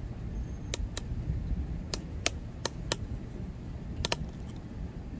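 Thunderstorm ambience: a steady low rumble with about eight sharp, irregular ticks.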